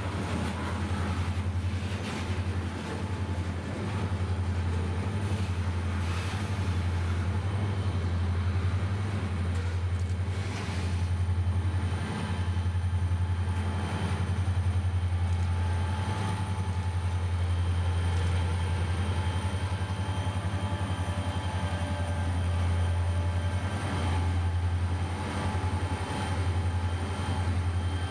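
Freight cars rolling past on the rails with scattered wheel clicks, under the steady low drone of BNSF diesel-electric road-switcher locomotives, which pass close by near the end.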